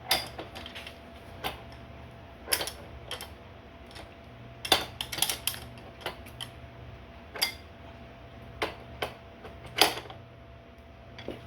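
Steel open-end wrench clinking on a crank puller as it is fitted and turned to draw a bicycle crank arm off the bottom bracket spindle: irregular sharp metal clicks and knocks, a few in quick clusters, over a steady low hum.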